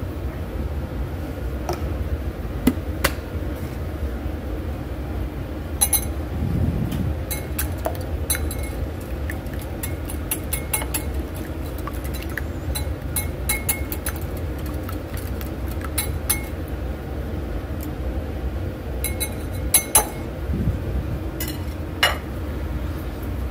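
Wire whisk beating eggs in a bowl: quick runs of clinking as the wires strike the bowl's side, starting about six seconds in, with a short pause about three-quarters through. A steady low hum runs underneath.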